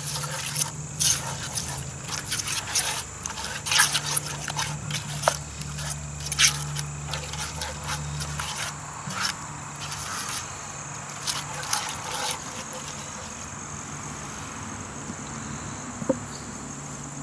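Silicone spatula stirring and scraping a thick sauce in a cast iron Dutch oven, with repeated wet scrapes and knocks against the pot. These stop about twelve seconds in, and one sharp click comes near the end. A steady high thin tone and a low hum run behind it.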